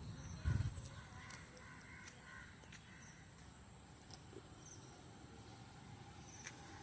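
Faint outdoor birdsong: short bird chirps over a steady high-pitched insect drone, with a low thump about half a second in.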